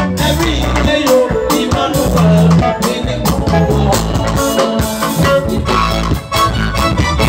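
Live band music played loud through PA speakers: a drum kit keeps a steady beat under electric guitar, bass and keyboard.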